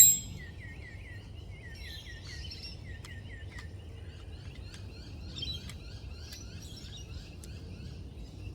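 A bird calling in a fast run of short, downward-sweeping chirps, about three a second, for the first few seconds, then scattered higher chirps. A sharp metallic clink right at the start is the loudest sound, with a few faint handling clicks later, over a steady low background hum.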